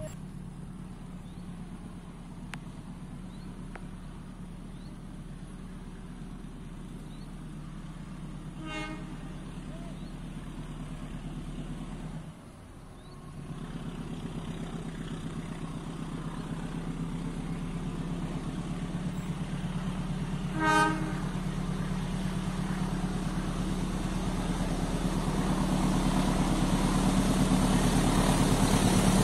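Indonesian diesel-electric locomotive approaching with a passenger train, its engine drone growing louder toward the end. The horn gives two short toots about twelve seconds apart, the second louder.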